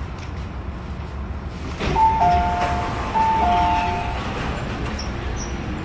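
On-train two-tone chime, a higher note falling to a lower one, sounding twice, over the steady running rumble of an MTR Tung Chung line CAF train.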